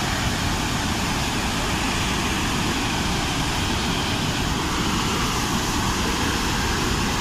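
Dam spillway discharging: water pouring from the open gates down the concrete face and crashing into the river below, a steady rush.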